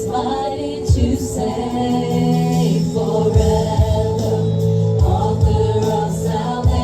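Gospel music with singing over a steady beat and bass line.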